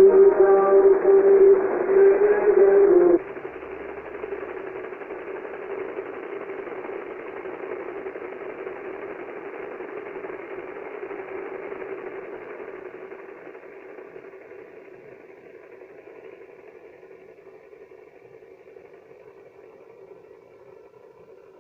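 Shortwave radio broadcast heard through a receiver: music playing for about three seconds, then the signal cuts off abruptly, leaving a hiss of shortwave static that slowly fades lower.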